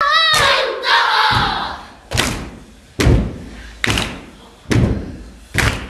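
Children performing a haka: a shouted call and a group shout at the start, then five heavy stamps in unison, a little under a second apart.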